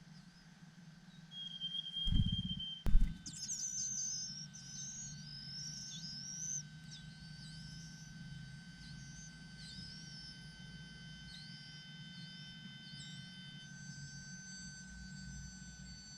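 Birds chirping: a quick series of short, high, down-curving chirps that starts loud and fades over about ten seconds. Just before it there is a low thump and a sharp click, the loudest sounds.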